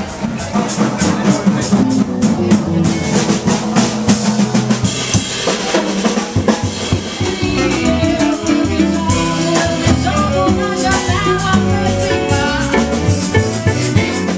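Live band music: a drum kit keeping a steady beat with bass guitar underneath, and a pitched melody line joining about five seconds in.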